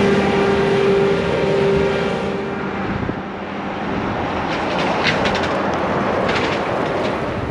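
A motor running steadily with a humming tone, which gives way to a rougher rushing noise about two and a half seconds in.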